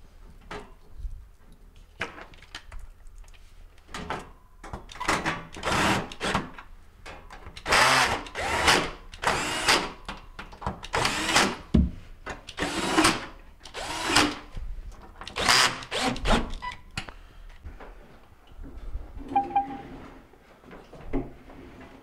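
Cordless drill fitted with a quarter-inch nut-driver bit, run in about a dozen short whirring bursts to drive the screws of a refrigerator's sheet-metal back access panel, with light metallic clinks from the panel.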